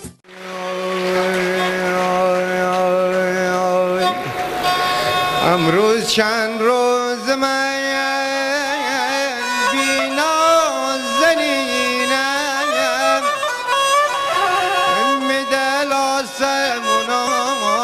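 Instrumental music in a Middle Eastern traditional style. It opens on held notes over a low drone, then a wavering, ornamented melody line comes in about six seconds in.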